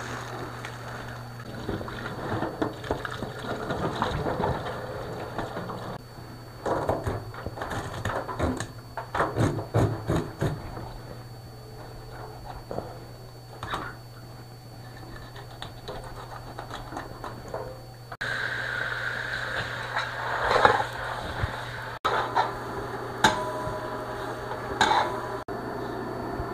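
Kitchen work over a steady low hum: a knife knocking and scraping as a large fish is cleaned and cut in a stainless-steel sink. About two-thirds of the way in this gives way abruptly to a wok frying with a steady sizzle and the scrape of a spatula against the pan.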